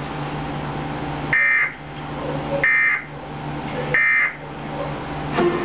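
Emergency Alert System end-of-message (EOM) data burst: three short bursts of the SAME header's two-tone digital screech, about a second apart, signalling the end of the alert, heard from a TV's speaker over a steady low hum.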